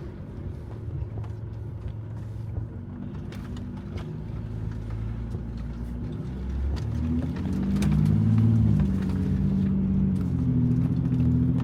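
Diesel Jeep Gladiator engine pulling slowly in low gear over a rocky creek bed, rising in pitch and level about seven seconds in as it takes more throttle, with scattered light knocks.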